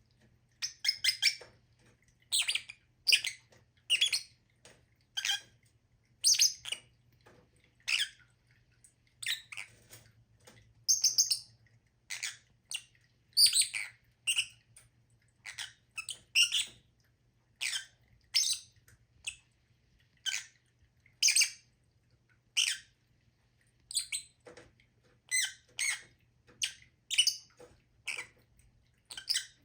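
Lovebird giving short, shrill chirps and squawks, one after another, about one or two a second.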